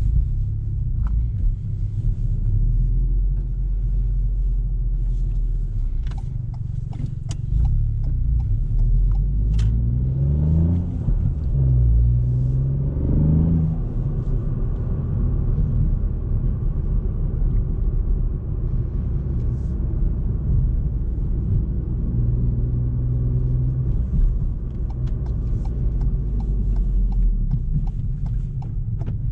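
Ford Fiesta ST MK8's 1.5-litre turbocharged three-cylinder engine and road noise, heard from inside the car while cruising at a steady drone. About ten seconds in, the revs rise, drop at a gear change, then rise again before settling back to an even cruise.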